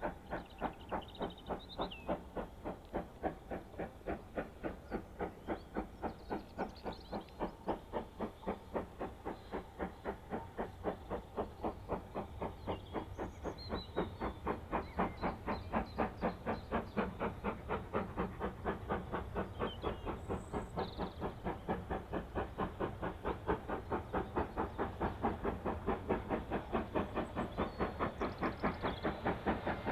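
Steam locomotive working hard, its exhaust beating in an even, rapid rhythm that grows slowly louder as it approaches. Birds chirp faintly now and then.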